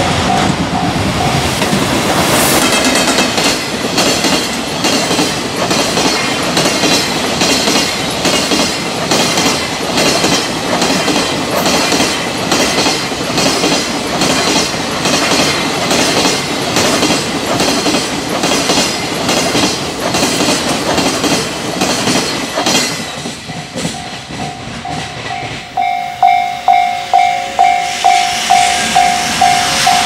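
Freight train running past, its wheels clacking over rail joints in a steady, repeating rhythm. As the train's noise falls away near the end, a level crossing warning bell rings in regular pulses, about two a second.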